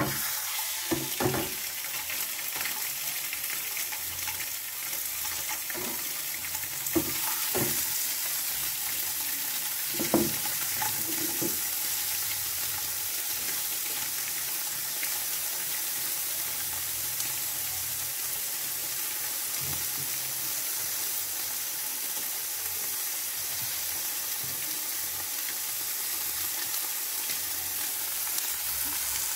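Fish fillets sizzling as they fry in olive oil in a hot frying pan, the sizzle starting as the first fillet goes in and holding steady. A few short knocks in the first dozen seconds, the loudest about ten seconds in.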